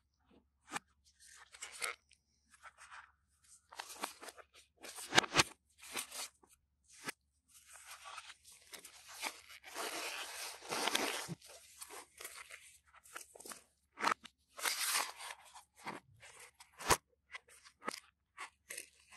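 Gloved hands handling a smartphone and its packaging: irregular rustling and crinkling with scattered taps and clicks, the sharpest about five seconds in and again near the end.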